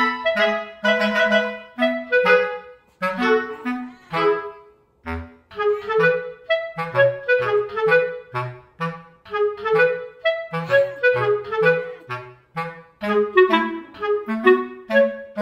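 Background music: a lively melody of short, quick notes over a lower bass line.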